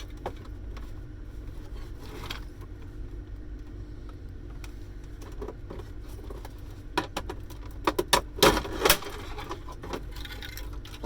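Plastic and metal parts of an electronic cash register being handled and pulled apart during dismantling: light clicks and rattles over a steady low hum, with a cluster of sharp clattering knocks about seven to nine seconds in.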